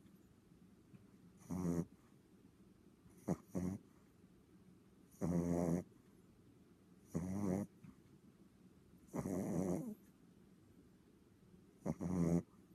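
Boston terrier snoring in its sleep: a run of short snores, about one every two seconds, each lasting around half a second.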